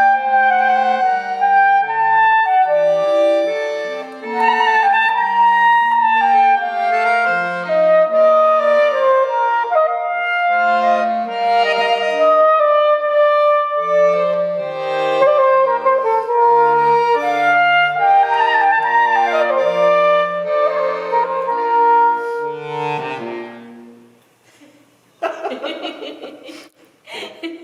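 Soprano saxophone and accordion playing a duet: a sliding saxophone melody over sustained accordion chords and bass notes. The music ends about 24 seconds in, followed by a short burst of noise near the end.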